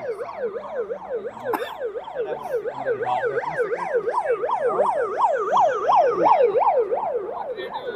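Police vehicle siren in a fast up-and-down yelp, about three sweeps a second. It grows louder as the vehicle approaches, then fades near the end as it passes.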